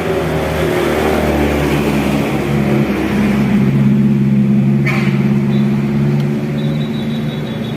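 Tour bus engine running, growing louder for a couple of seconds and then easing off, with a short hiss about five seconds in.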